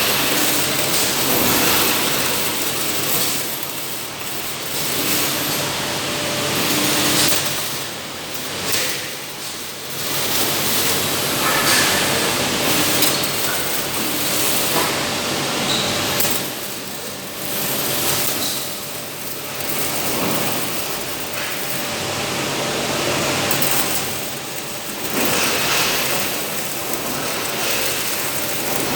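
Industrial welding robot at work: a continuous hissing, crackling noise that swells and dips every few seconds, over a faint steady machine hum.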